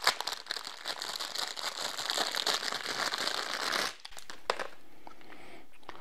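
Clear plastic packaging crinkling as it is pulled off a small tripod mounting part, for about four seconds. A few light clicks follow as the part is handled.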